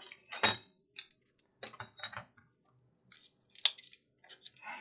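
Sheet-metal heatsink pieces and bolts clinking and clattering against each other as they are picked up by hand and cleared off a workbench mat: a run of irregular metallic clinks, loudest about half a second in and again past the three-second mark.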